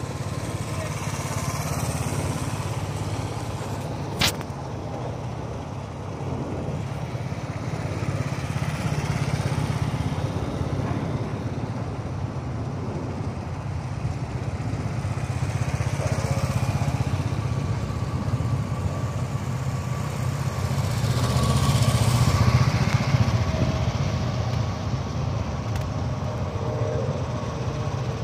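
Several motorcycles riding past at low speed, their engines running as a steady low drone that swells and fades as each group goes by. There is one sharp click about four seconds in.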